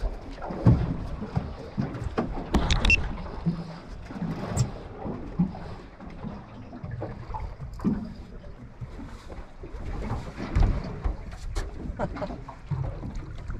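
Water sloshing against a small aluminium plate boat, with irregular knocks and thumps on the hull; the loudest come about a second in, near three seconds, near five seconds and near eleven seconds.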